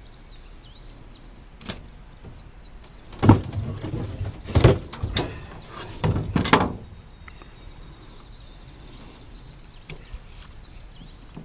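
Wooden fish-measuring board being handled against an aluminium boat. There is a light knock, then a run of loud knocks and scrapes over about three and a half seconds.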